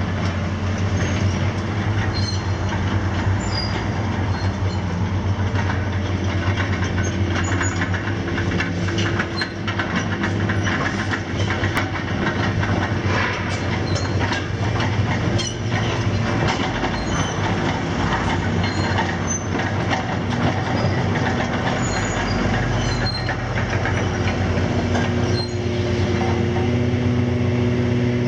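Hitachi ZX490LCH excavator travelling on its steel crawler tracks: the track links clank in quick, irregular clicks over the steady running of its Isuzu six-cylinder diesel. It grows louder in the last few seconds.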